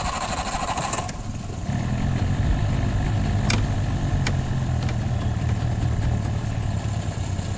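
A 27-year-old outboard motor on a bass boat catches about a second and a half in and runs at a steady low idle. It idles only with the primer pulled out, a quirk the owners later trace to a blocked fuel-tank vent. A steady whine stops about a second in, and two sharp clicks sound near the middle.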